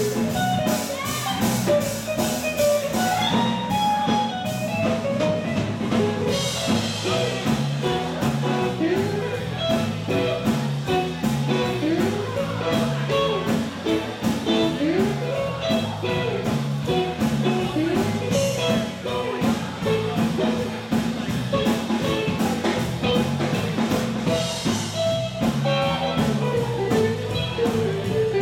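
Live blues-swing band playing a dance tune, electric guitar over a drum kit keeping a steady beat.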